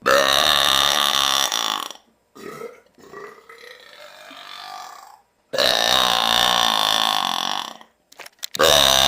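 Two long, loud belches of about two seconds each, one right at the start and another about five and a half seconds in, with softer sounds between them.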